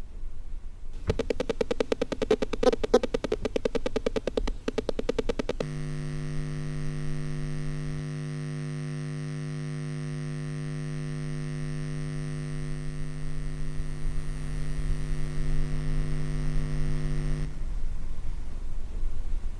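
Electric buzz sound effect. A rapidly pulsing, stuttering buzz runs for about four seconds, then turns into a steady low electrical hum with many overtones. The hum cuts off suddenly near the end, over a low background rumble.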